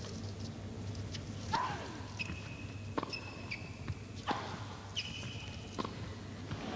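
Tennis rally: the ball struck by the rackets four times, about every second and a half, with short squeaks of tennis shoes on the court between strokes.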